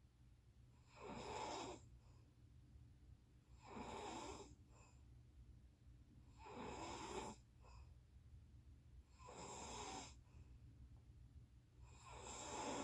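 A person snoring: five snores at an even pace, about one every three seconds, each under a second long. A faint steady low hum runs underneath.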